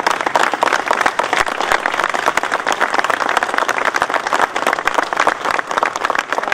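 A small crowd applauding, a dense run of hand claps.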